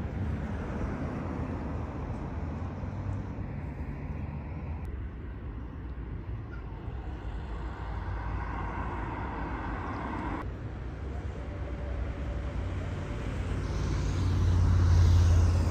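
Road traffic going by, with a low engine rumble that grows louder as a vehicle passes close near the end.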